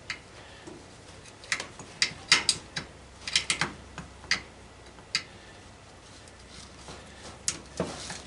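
Scattered sharp clicks and taps of hands and tools working on washing-machine parts during teardown. Several come close together in the first few seconds, then a pause, then two more near the end.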